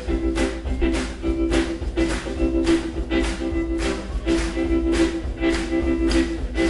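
Live rockabilly and R&B band playing an instrumental stretch with no singing: upright bass, drums and electric guitar over a steady beat of about two drum hits a second.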